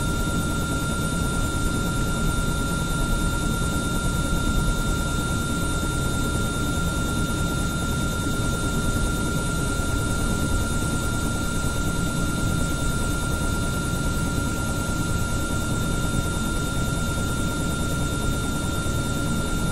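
Helicopter running steadily after start-up: a low, rapid rotor chop under a constant high whine, with no change in pitch or level.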